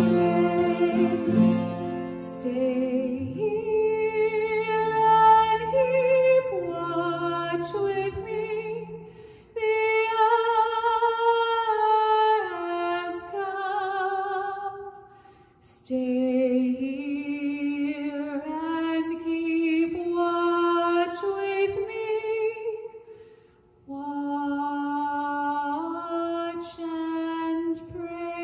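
A woman singing a quiet song with acoustic guitar accompaniment: long held notes with vibrato, sung in phrases separated by short breaks.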